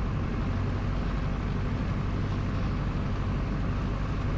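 Piper J-3 Cub's engine and propeller running steadily at approach power, a low, even drone with airflow noise heard inside the cabin.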